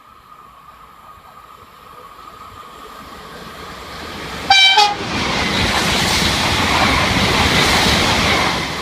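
Two coupled Bombardier AGC regional units approaching and passing through at speed, giving one short horn blast about four and a half seconds in. The rolling noise builds steadily and is loudest as the cars go by near the end.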